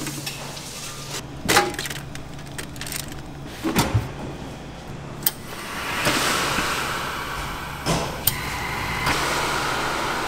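Antunes countertop food steamer heating meat: a few sharp metal clanks of pan and lid over a low steady hum. From about six seconds in, a steady hiss of steam takes over.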